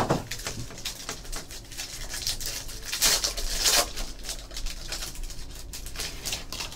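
Foil wrapper of a trading card pack crinkling and tearing as it is opened by hand, loudest about three seconds in, followed by cards sliding out of the foil. A sharp click right at the start.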